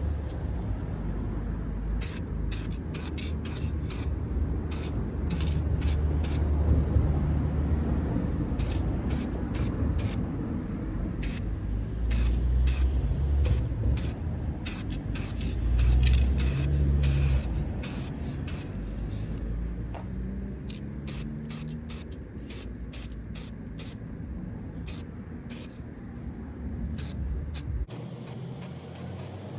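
Aerosol spray can of base-coat car paint hissing in many short bursts as a thin first coat is laid on, over a low rumble.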